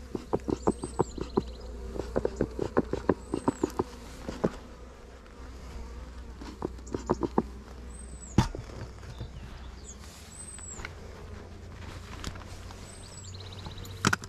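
A bellows bee smoker being pumped in quick runs of puffs, about four or five a second, with honeybees buzzing around the hive. A high chirp rises and falls every few seconds, and there is a sharp click a little past the middle and another near the end.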